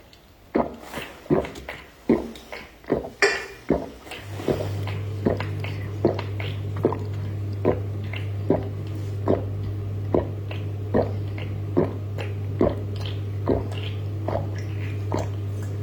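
A person chewing, with regular short crunches: quick ones at first, then slower and softer. A steady low hum comes in about four seconds in.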